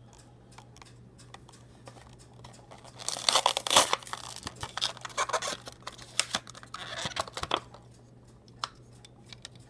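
Packaging being torn open and crinkled: a few light clicks, then several bursts of rustling and tearing, the loudest about three seconds in.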